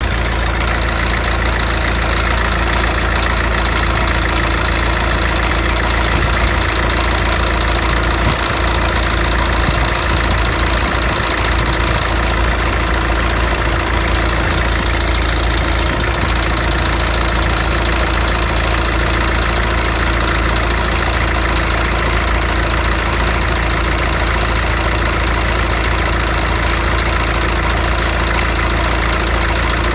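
SsangYong Actyon engine idling steadily with a noise from the alternator belt drive, which turned out to be a failing alternator overrunning clutch pulley.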